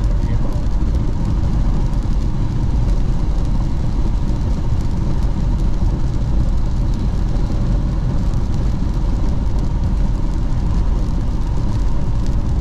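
Steady road noise of a car driving at highway speed on a wet road, heard from inside the cabin: an even, low rumble of tyres and engine.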